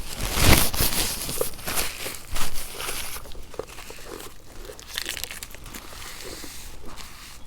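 Plastic snack-bar wrappers crinkling as they are handled, loudest in the first few seconds, then quieter scattered rustling.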